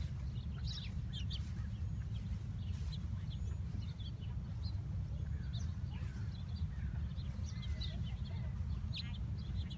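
Small birds giving many short, high chirps and brief call notes at irregular intervals, over a steady low rumble.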